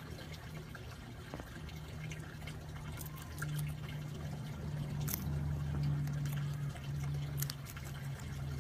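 A hairless guinea pig chewing fresh green beans: a few crisp bites and crunches over a steady low hum that breaks off now and then.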